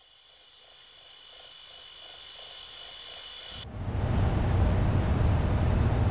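Crickets chirping in a steady pulsing trill, fading up, then cut off suddenly about three and a half seconds in by a much louder low rumbling noise that carries on.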